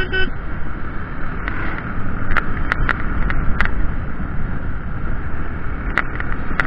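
Steady rushing wind and road noise from a moving motorcycle, picked up by an action camera's microphone, with the engine running underneath and a few sharp ticks.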